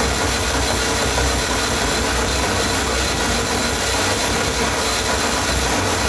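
Experimental noise music: a dense, steady wall of hiss and low rumble with a few faint held tones, its level unchanging.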